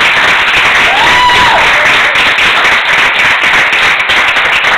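Audience applauding steadily, with one short rising-and-falling whoop about a second in.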